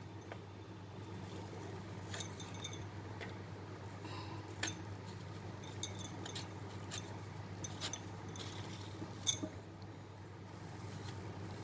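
Scattered small crackles and clicks as the charred outer skin is peeled off roasted nagphani cactus, the sharpest about nine seconds in, over a low steady hum.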